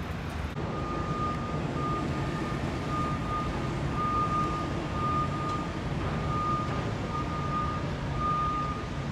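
A vehicle's reversing alarm beeping over and over at one high pitch, starting about half a second in, over a steady low rumble of engine and traffic noise.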